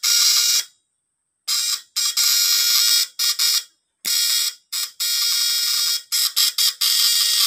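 Homemade platinum-points (vibrating contact-breaker) fish stunner buzzing loudly in on-off bursts, some around a second long and some short stutters. It is running strongly and without heating up after its repair.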